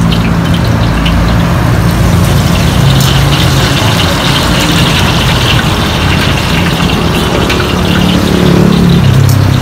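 Street traffic close by: motorcycle and car engines running as they pass.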